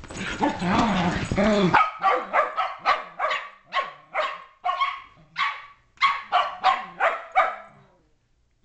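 Shetland sheepdogs at play: a loud, rough tangle of dog noise for nearly two seconds, then a rapid run of short, sharp barks, about three a second, which stops shortly before the end.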